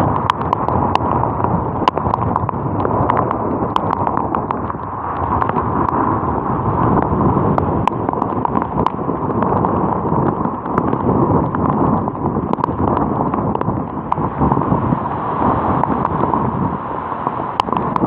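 Strong storm wind blowing against the phone's microphone: a loud, dense rush with frequent sharp crackles throughout.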